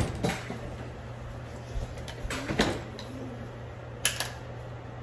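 Kitchen handling sounds over a steady low hum: a door knocking shut at the start, another knock about two and a half seconds in, and two quick clicks near four seconds as a plastic milk jug is handled at the blender.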